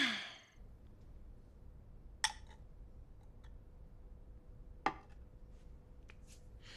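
Quiet room tone with a faint steady hum. A short sound dies away at the very start, and two sharp taps come about two and five seconds in, with a few fainter ticks between them.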